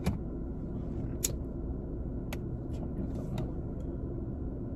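Car engine idling, heard from inside the cabin: a steady low rumble. Three sharp clicks come about a second apart.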